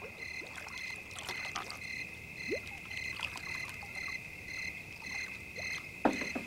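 Night-time pond chorus of crickets and frogs: a steady high-pitched trill with a regular pulsing chirp over it.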